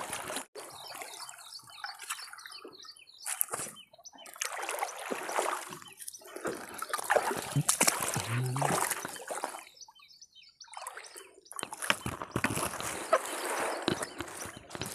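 Irregular splashing and sloshing of lake water, from a wooden paddle dipping and from wading in the shallows beside a small boat.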